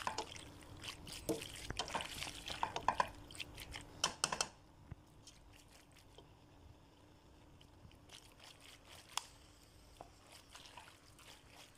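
Macaroni in tomato sauce being stirred and folded with a spatula in a stainless steel pot: wet squelching with scrapes and clicks against the pot, busiest in the first four seconds and then quieter with only occasional clicks. A faint steady hum runs underneath.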